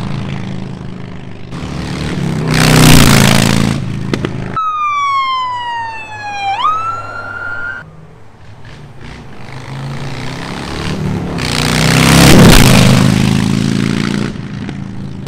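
Harley-Davidson Street Bob's V-twin through 2.5-inch Freedom Performance Radical Radius slip-on exhausts, riding past twice, loudest about three seconds in and again near the end. In between, after a sudden cut, a single wailing tone slides slowly down and then sweeps sharply up, like a siren.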